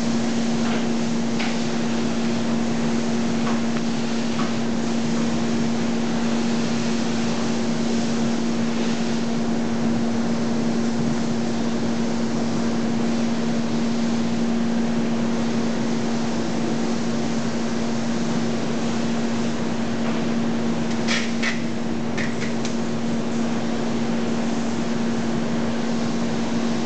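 Steady machine hum at one constant pitch over an even background rush of factory noise. A few short crinkles of plastic packing wrap come about three quarters of the way through.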